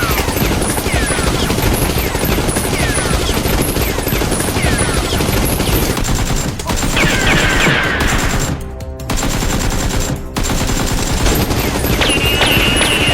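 Sustained rapid gunfire, dense overlapping bursts of automatic fire with repeated high falling pings, and a brief lull about two-thirds of the way through.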